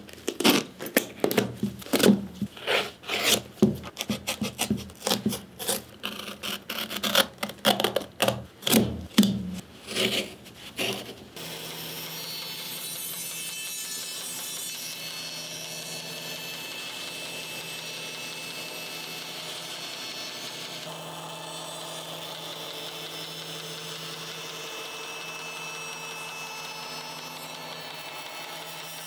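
For about the first eleven seconds, a quick, irregular series of sharp rubbing strokes as a bootlace is pulled out through the eyelets of a leather work boot. Then a band saw runs steadily, its blade cutting down through the boot.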